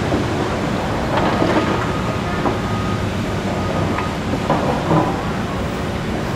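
John Deere excavator's diesel engine running steadily as it dumps a bucketload of demolition rubble into a dump truck, with a series of knocks and clatters as the debris lands in the steel truck bed.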